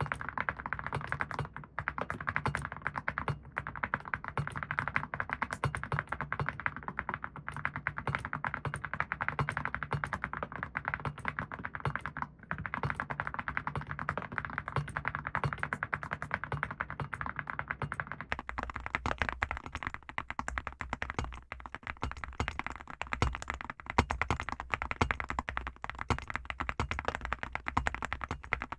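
Fast, continuous typing on a mechanical keyboard fitted with full-metal keycaps: a dense stream of keystroke clicks and thocks.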